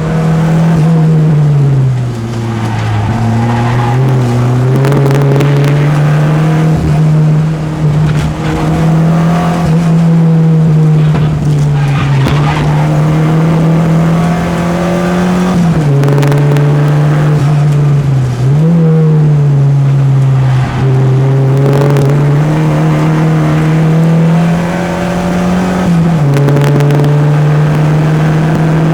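Peugeot 205 engine driven hard around a race circuit. Its note holds high and drops briefly several times at gear changes before climbing again.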